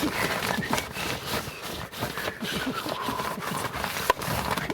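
Scraping and rustling of electrical cable being worked through a hole drilled in a wooden beam, with a sharp click about four seconds in.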